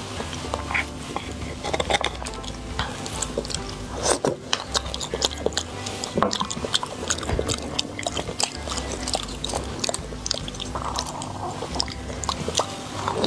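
Close-up, wet chewing and lip smacking of braised beef bone marrow, with many short sharp mouth clicks.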